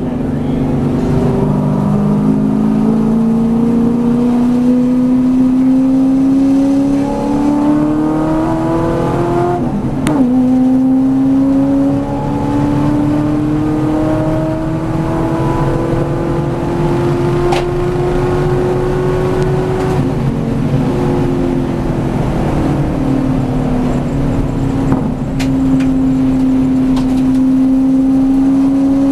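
V8 Supercar's V8 engine heard from inside the cabin, pulling hard under acceleration: the note climbs, drops sharply at an upshift about ten seconds in, climbs again, then falls as the car slows for a corner around twenty seconds in before holding steady.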